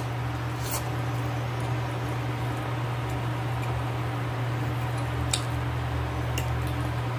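Close-up chewing of a mouthful of boiled meat, with a few faint clicks, over a steady low hum.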